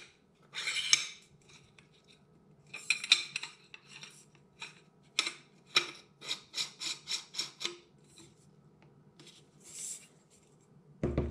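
Airgun barrel shroud being slid back over an FX barrel and fitted: scraping and rubbing of the tubes against each other, a couple of sharp clicks, then a quick run of light ticks, about four or five a second, halfway through.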